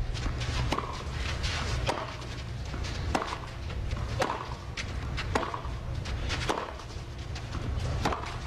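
Tennis rally: a ball struck back and forth with racquets, a sharp hit and bounce about every second, over a steady low rumble of the crowd and open-air surroundings.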